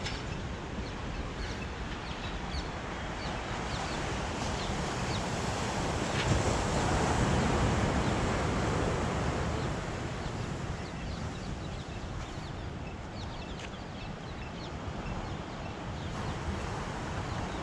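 Sea waves washing onto a sandy beach, with wind on the microphone; one wave swells louder about six seconds in and fades away over the next few seconds.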